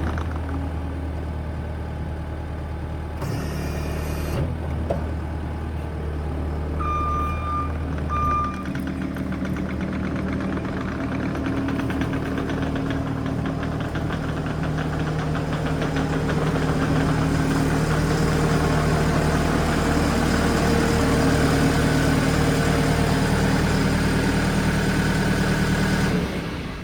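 Case TR310B compact track loader's diesel engine running steadily, with two short electronic beeps about seven and eight seconds in. The engine note changes about eight seconds in and grows louder in the second half, then cuts off just before the end.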